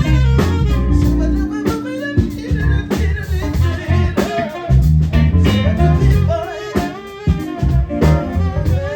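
Live band playing an instrumental section of a soul song, with drums, electric bass and keys under a wavering lead melody.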